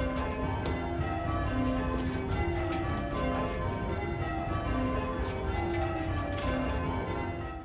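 Six church tower bells rung full-circle on ropes in rounds. The bells strike one after another down the scale in a steady, repeating order, each note ringing on into the next.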